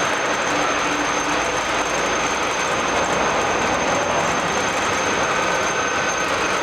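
All-geared radial drilling machine running: a steady dense mechanical noise with a thin high whine held throughout.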